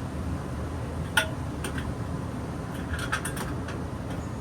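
Household furnace blower fan running steadily, with a few sharp clicks and clinks from the filter and its cover being handled at the filter slot: one about a second in, then a small cluster around three seconds in.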